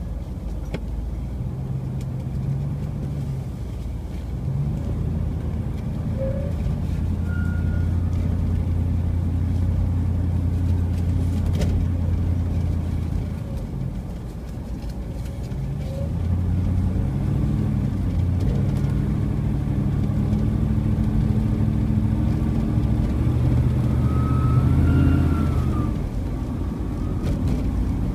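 Car engine and tyre noise while driving, the engine's low pitch rising and falling several times as the car speeds up and slows, with a brief lull about halfway through.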